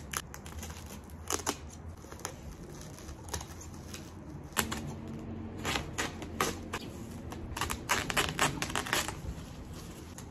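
Scissors snipping through plastic sack wrapping and the plastic crackling as it is pulled open: irregular sharp snips and rustles, coming thickest in the second half.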